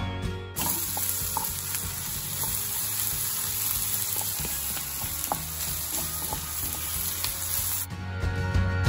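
Diced onions and carrots sizzling in oil in a frying pan, stirred with a wooden spatula that scrapes and taps now and then. The sizzling starts about half a second in and gives way to music about a second before the end.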